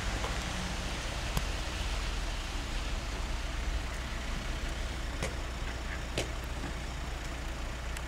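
Steady outdoor background noise, a low rumble with an even hiss over it, broken by a few faint clicks about a second, five seconds and six seconds in.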